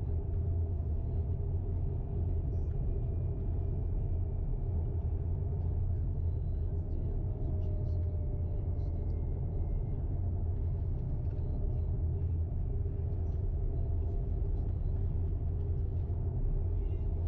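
Steady low road and tyre rumble inside the cabin of a moving Tesla Model X, an electric SUV with no engine note.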